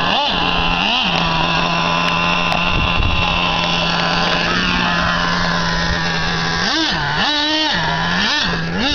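Nitro engine of a Traxxas Revo RC monster truck running at a steady pitch, with a couple of short revs near the start and a quick series of revs rising and falling near the end.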